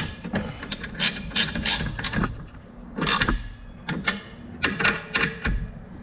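Hand socket ratchet clicking in short back-and-forth strokes as the bike's disc brake caliper bolts are tightened with the brake lever held squeezed.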